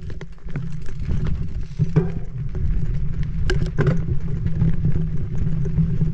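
Mountain bike riding a dirt singletrack: steady low rumble of wind on the camera microphone and tyres on the dirt, with a few sharp rattles of the bike over bumps about two, three and a half and four seconds in.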